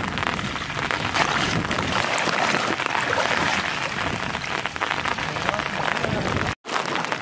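Heavy rain falling on floodwater: a steady, dense patter of drops. The sound cuts out for an instant near the end.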